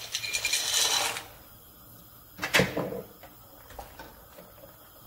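Dry pasta poured from a plastic container into a pot of boiling water, rattling and splashing for about the first second. A sharp knock about two and a half seconds in, then a wooden spoon stirring the pasta in the stainless steel pot with light scrapes and taps.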